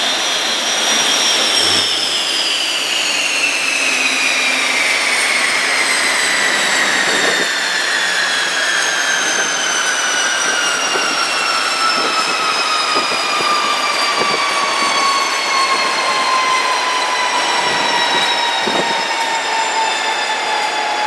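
Orenda OTF-3 aeroderivative industrial gas turbine winding down at the end of its test run. Its high whine begins to fall about two seconds in and keeps sliding steadily lower, over a constant rush of air.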